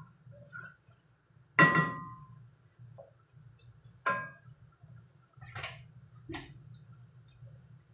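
Kitchen clatter of stirring: a wooden spoon knocking against a stone-coated cooking pot, with a sharp ringing clang about a second and a half in and a second, lighter clang about four seconds in, then a few small clicks and knocks, over a low steady hum.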